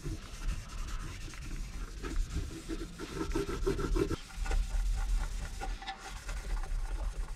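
Cotton cloth rubbing and buffing Brasso metal polish over a vintage radio's plastic (not Bakelite) case, an irregular scrubbing of uneven strokes. This is the final polishing stage, after Autosol.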